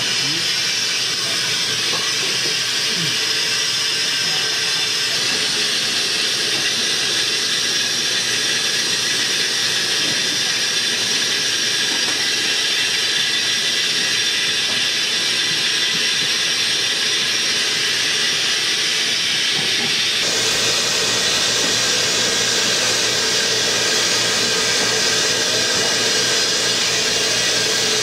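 Steady hiss of steam venting from a dumpling steamer. Its tone shifts slightly about two-thirds of the way in.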